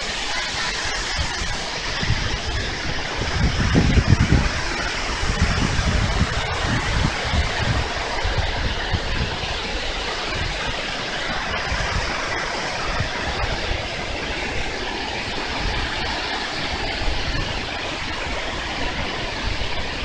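Steady rushing of Shiraito Falls: many thin streams of water pouring down a wide cliff face into the rocky river below. There are a few low rumbles about four seconds in.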